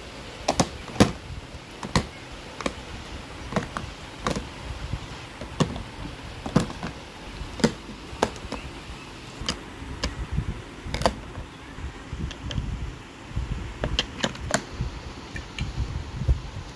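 Plastic cosmetic bottles and jars being set down into the compartments of a hard-plastic organizer, giving irregular clicks and knocks, about one or two a second, with handling rustle between them.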